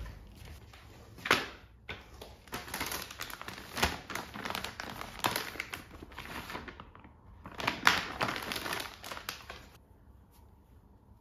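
Soft-plastic wet-wipe pack crinkling as it is handled, its flip-top lid opened and a wipe pulled out and unfolded. Sharp clicks stand out about a second in and again near eight seconds. The handling stops about ten seconds in.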